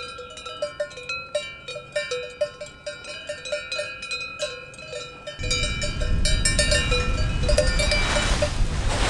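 Cowbells on grazing cattle clanking irregularly, their ringing strikes overlapping. About five seconds in a steady rushing noise comes in beneath them and swells over the last few seconds.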